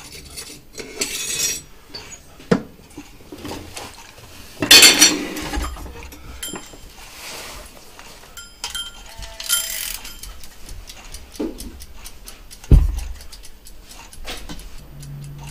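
Work at an enamelling kiln: scattered metallic knocks and clinks of tools, a firing tray and small copper pieces being handled. About five seconds in there is a loud rushing noise lasting about half a second, and near the end a single heavy thump.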